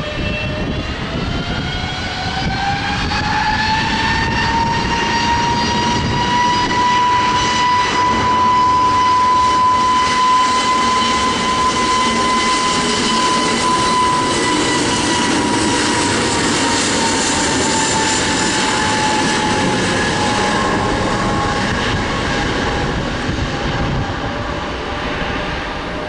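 Airbus A321neo's twin turbofan engines spooling up to take-off power. A whine rises in pitch over the first few seconds, then holds steady over a loud roar as the jet rolls down the runway. The whine sinks in pitch as the jet passes by.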